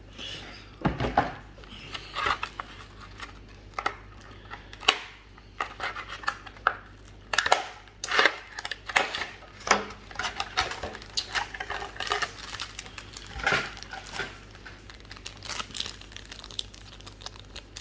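Packaging of a trading-card booster box crinkling and tearing as it is handled and opened: a run of irregular rustles and small clicks.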